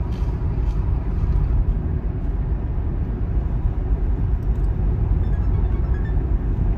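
A van driving along a road, heard from inside the cabin: a steady low rumble of engine and road noise.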